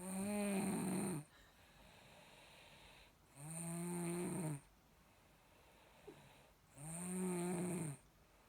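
Snoring: three long snores, each about a second with a clear buzzing pitch, coming about every three and a half seconds.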